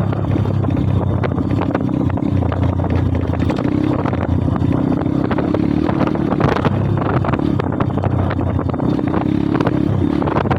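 Pit bike's small single-cylinder engine running at a steady cruising speed while riding, with wind buffeting the microphone.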